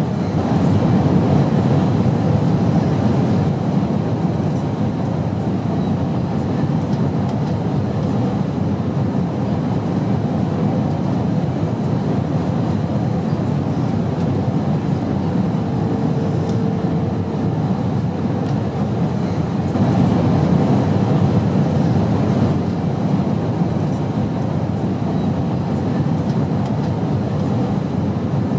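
Steady airplane engine drone, an even low rushing noise that swells slightly a couple of times, with a faint steady tone running through it.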